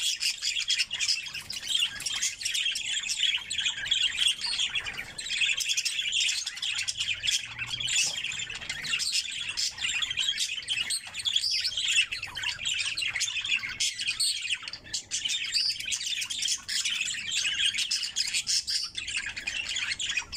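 Budgerigars chattering and chirping without pause, many high twittering calls overlapping.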